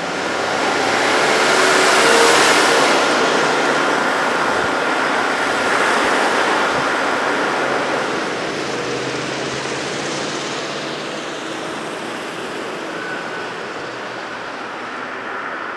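Road traffic on a busy multi-lane street: cars passing with tyre and engine noise, loudest about two seconds in and again around six seconds, then easing to a quieter, steady hum.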